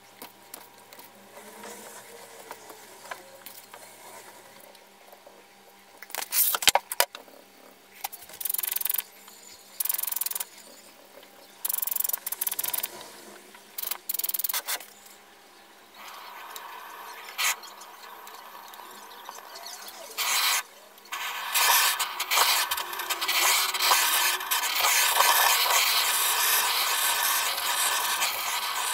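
Sand and soil being scooped by hand, sprinkled and scraped with a small spoon, in short bursts about a second or two apart. About two-thirds of the way in, a handheld electric power tool starts a steady whirring that lasts to the end.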